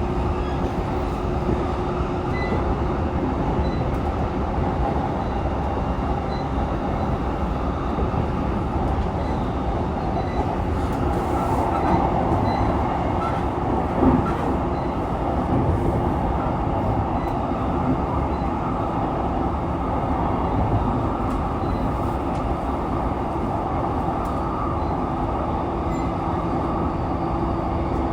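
JR E233 series 3000 electric multiple unit running at speed: a steady rumble of wheels on rail with a faint humming tone, scattered light clicks, and one sharper thump about 14 seconds in.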